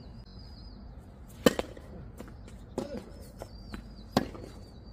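Tennis ball struck by racquets during a rally on a hard court: a loud, sharp hit about a second and a half in, a quieter hit between, and another loud hit near the end, with light footstep scuffs on the court.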